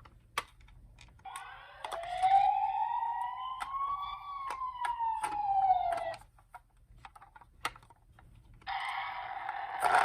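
Toy emergency-vehicle minicar's electronic siren sounding one slow wail that rises for about three seconds and then falls, with scattered sharp clicks. Near the end a steadier, multi-tone siren sound starts.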